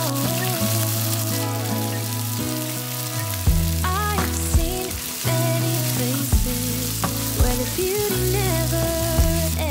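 Shrimp and crab sticks sizzling in hot oil in a nonstick wok, stirred with a silicone spatula, with a few sharp knocks and clacks as cooked rice is tipped in about four seconds in and then turned over. Background music with a melody and a steady bass plays throughout.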